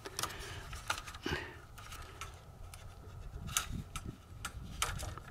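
Light, scattered clicks and scrapes of a plastic zip tie being threaded and pulled through a plastic RV vent cover and its metal-mesh insect screen.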